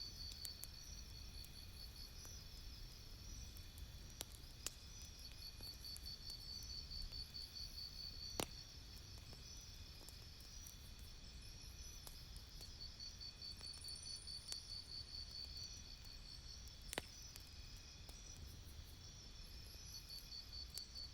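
Campfire crackling faintly, with a few isolated sharp pops, over a steady high chirping that pulses in trains throughout.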